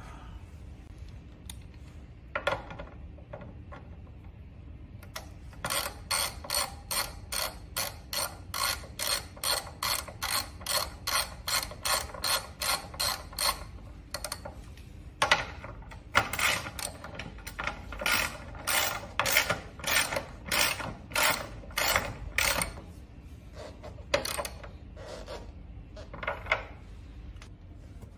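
Hand ratchet wrench tightening the front axle nut on a scooter's fat-tyre wheel, rattling with a burst of clicks on each back-stroke at about two strokes a second. It comes in two long runs with a short pause between, then a few slower strokes near the end.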